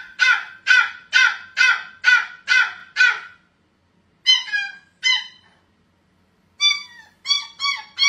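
Eight evenly spaced animal calls, about two a second, then a young puppy whining and howling in short high cries that fall in pitch: two near the middle and several close together near the end.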